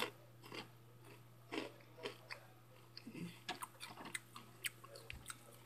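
Hot Cheetos being chewed: faint, irregular crunches, with a steady low hum underneath.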